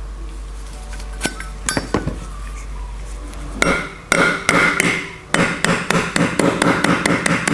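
Sharp metallic clicks and taps on a Zippo lighter's metal case and hinge, each ringing briefly. A few come singly at first, then past the halfway point a quick run of them follows, several a second.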